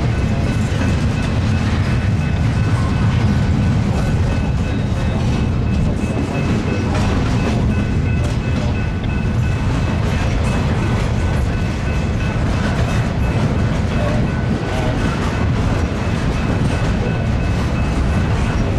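Freight cars of a long Norfolk Southern intermodal train rolling past with a steady, heavy rumble of wheels on rail. Faint steady high-pitched tones ring above the rumble.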